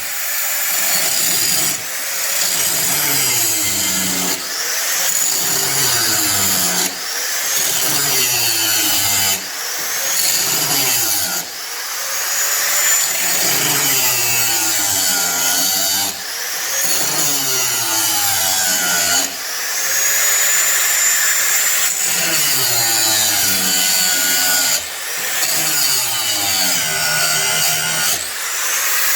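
Cordless drill boring out spot welds in a steel car frame rail, in a string of runs a couple of seconds long. Each run starts with a rising whine as the drill spins up, and the pitch slides down as the bit bites into the weld.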